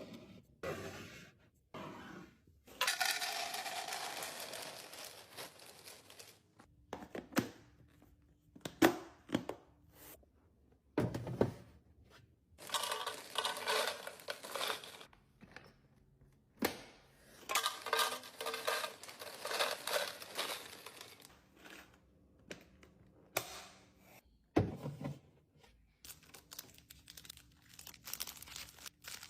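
Restocking sounds: plastic food packaging crinkling and tearing in stretches of a few seconds, with separate sharp knocks of items being set down, in short pieces that start and stop abruptly.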